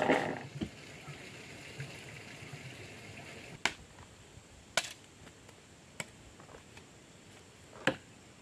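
A hand tool knocking into hard ground four times, sharp single strikes about one to two seconds apart, after a brief loud rush of noise at the start that dies away within half a second.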